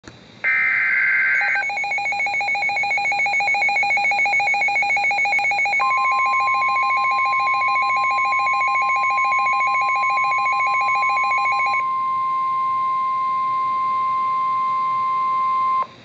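NOAA Weather Radio receiver sounding a severe thunderstorm warning alert. A short data burst comes first, then the receiver's rapid warbling alarm. From about six seconds in, the steady single-pitch warning alarm tone joins it, outlasts the warble and cuts off abruptly near the end.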